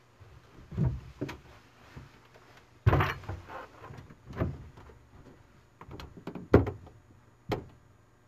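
An uneven string of about eight knocks and clunks, as of something being handled or a panel or door being worked. The loudest comes about three seconds in with a short scraping tail, and another strong knock comes about six and a half seconds in.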